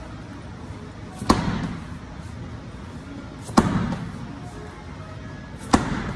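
A slam ball is thrown hard onto rubber gym flooring three times, about two seconds apart. Each hit is a sharp thud with a short echo after it.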